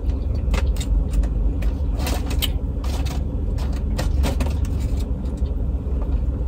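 Low steady rumble of a car's engine idling, with scattered short clicks and smacks from eating.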